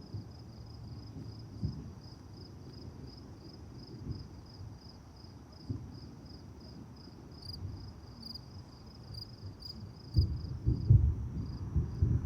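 Crickets chirping steadily, about four chirps a second, under a low rumble of distant thunder that swells loudly about ten seconds in.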